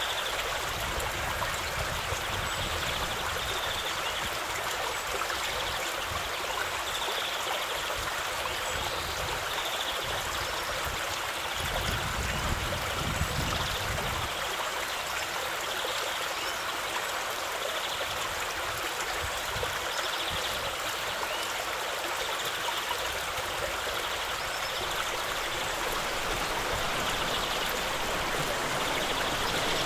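Shallow stream running steadily over a stony bed, with a brief low rumble about twelve seconds in.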